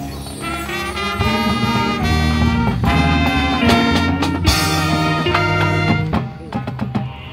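High school marching band playing: trumpets and saxophones carrying sustained notes over drums and front-ensemble percussion. The music thins out and drops in level about six seconds in.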